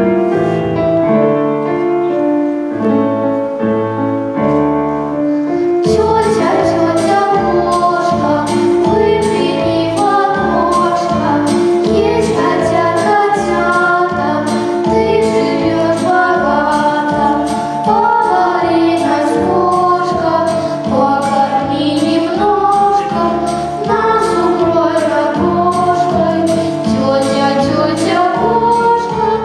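A song played over a backing track: a lighter instrumental opening, then from about six seconds in a fuller accompaniment with a steady beat and voices singing.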